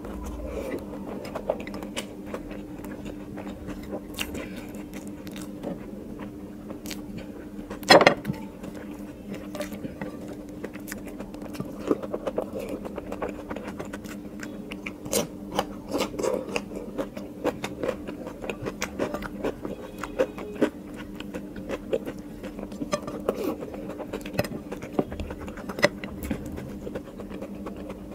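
Close-up eating sounds: fingers picking and scraping chopped herb leaves on a plate and a mouth chewing, with many small clicks and one louder smack about eight seconds in, over a steady low hum.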